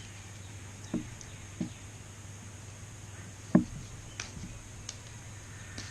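Wire strippers working on thin speaker wires: about six separate short clicks and snips, the loudest about halfway through, over a low steady hum.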